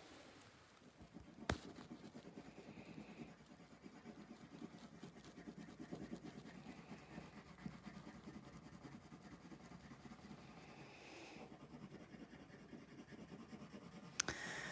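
Coloured pencil scratching faintly on paper in quick back-and-forth shading strokes, with one sharp tap about a second and a half in.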